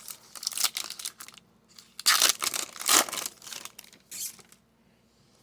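A trading card pack's wrapper crinkling and tearing as it is opened, in two rustling spells that stop about four and a half seconds in.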